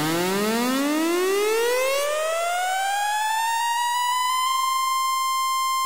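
Electronic music riser: a buzzy synthesizer tone with many overtones glides steadily up in pitch for about four seconds, then holds one high note.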